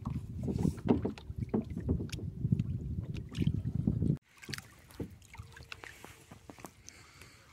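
Water slapping and splashing against a moving kayak's hull, with wind rumbling on the microphone. About four seconds in it cuts off suddenly to much quieter lapping water with a few light knocks.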